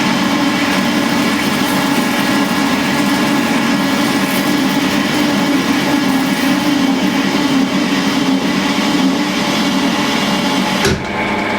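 Colchester Bantam metal lathe running under a heavy cut, a loud steady mechanical drone with gear whine. Near the end the sound changes abruptly to a quieter, higher-pitched running tone.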